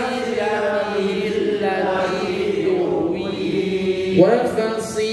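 Quran recitation in a slow, melodic chant, with drawn-out held notes; one phrase ends about four seconds in and a new one begins.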